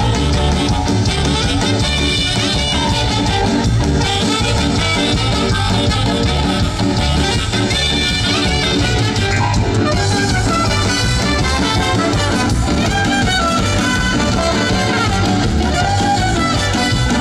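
Loud Latin dance music playing steadily without a break, for carnival dancing.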